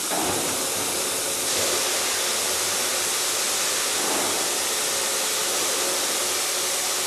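Welding at work: a steady hiss, growing a little brighter about a second and a half in.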